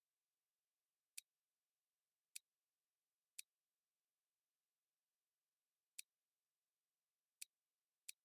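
Computer mouse button clicking six times at uneven intervals over near-silent background.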